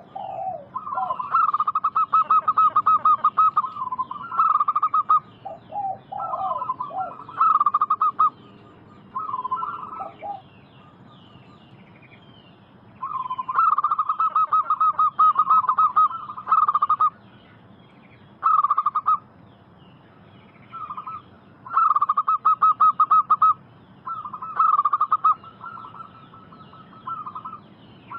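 Zebra doves (perkutut) cooing in repeated phrases of fast pulsed notes, some phrases opening with a few lower coos, with a pause of a few seconds near the middle. Fainter high chirping of other birds runs underneath.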